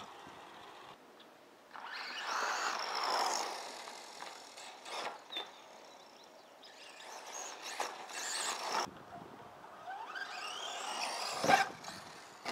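Hobbywing brushless electric motor of an HPI Blitz RC short-course truck whining in three bursts, its pitch rising as the truck accelerates. Near the end comes a sharp knock, the loudest sound, as the truck lands.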